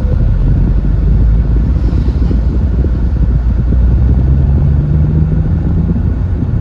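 MG TF driving at speed, heard from inside the cabin: a steady low rumble of engine and road noise. In the second half an engine note comes up and rises slightly.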